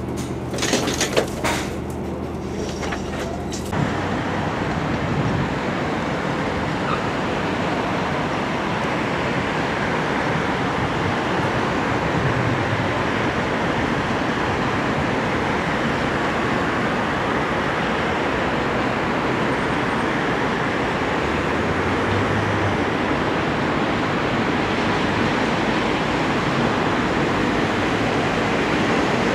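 Steady distant rumble of trains running through a large railway yard, mixed with city traffic noise. Before it sets in, about four seconds in, there is a steady low hum with a few clicks.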